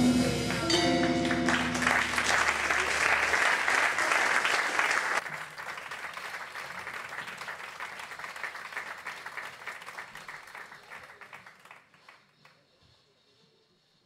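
A jazz quintet with tenor saxophone, piano, guitar, bass and drums ends on its final notes about a second in, followed by audience applause. The applause drops suddenly about five seconds in and then fades away.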